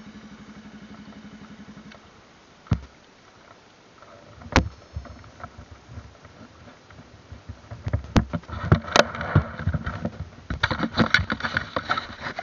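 Motorcycle engine idling with an even pulse, then switched off about two seconds in. After it, single knocks and then a busy run of clicks, knocks and rubbing in the second half as the handlebar-mounted camera is handled.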